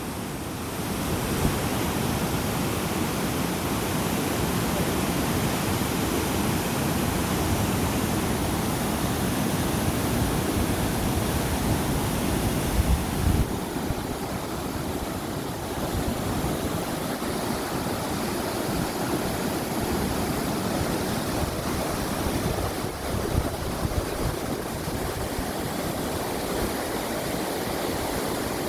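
Mountain stream water rushing, a steady unbroken rush; about halfway through its upper hiss drops back a little.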